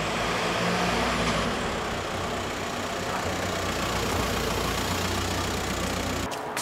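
Škoda Roomster's engine running in an underground car park: a steady low hum under a hiss. It cuts off abruptly near the end.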